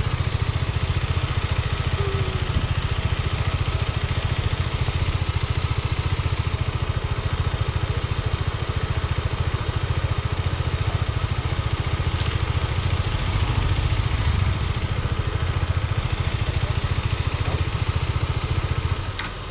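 KTM Adventure motorcycle's single-cylinder engine idling steadily close by. Another motorcycle grows a little louder partway through, and the engine sound drops away near the end.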